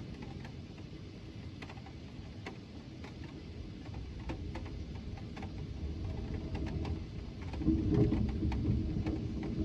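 Thunder rumbling, growing louder over several seconds and loudest a little before the end, with scattered light raindrop ticks.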